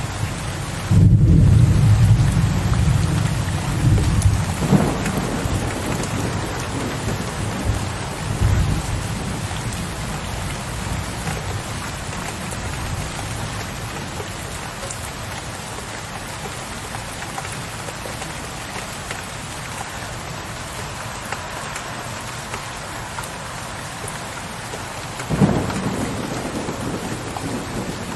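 Steady rain with low rumbles of thunder: a loud rumble starts about a second in and fades over several seconds, and another breaks in suddenly near the end.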